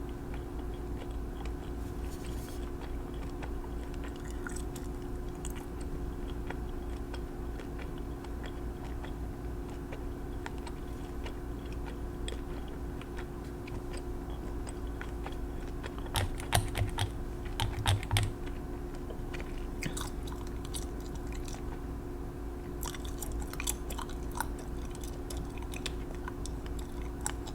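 Small sharp clicks and taps close to the microphone from handling nail-painting things: polish bottles, the brush and fingernails. A cluster of louder knocks comes about two thirds of the way in. A steady low hum runs underneath.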